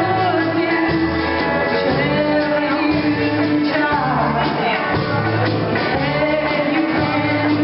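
Live country-style band playing: a woman sings lead into a microphone over strummed guitars, banjo, accordion and drums.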